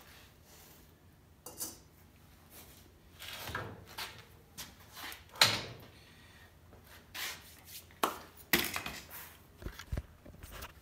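Scattered clinks and knocks of metal being handled: a small metal bowl set down on a metal axle housing and the housing and its axle shifted about, the sharpest knock about five and a half seconds in. Low handling thumps from the camera being picked up near the end.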